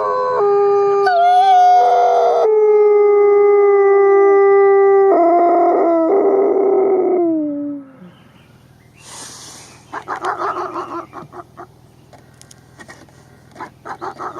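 Several wolves howling together in long, held howls at different pitches that slide downward as they end, about eight seconds in. After that comes a quieter stretch of short yips and whimpers over a low hum.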